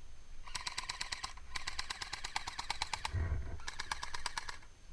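Airsoft guns firing full-auto in three rapid bursts of sharp clicks: a short one, a longer one and a medium one, with a dull thump after the long burst.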